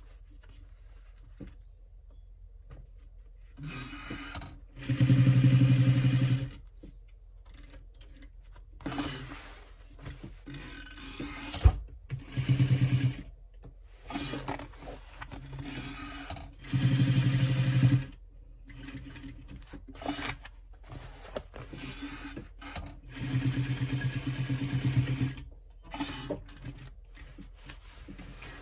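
Industrial sewing machine stitching in short runs: four loud bursts of a second or two each, with shorter, quieter runs and pauses in between. There is one sharp click a little before the middle.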